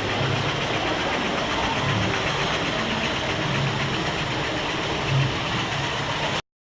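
Steady mechanical running noise with a low hum and hiss, typical of an amusement-park ride's train or machinery, cutting off abruptly near the end.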